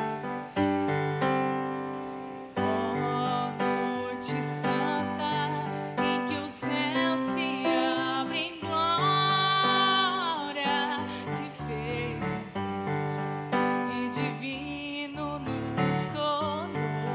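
Music: a keyboard playing sustained chords under a melody line with vibrato.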